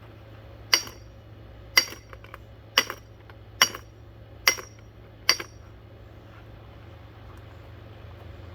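Six sharp blows, about one a second, striking a ceiling fan's glass light housing, each with a short high glassy ring, then they stop. The glass holds and does not break.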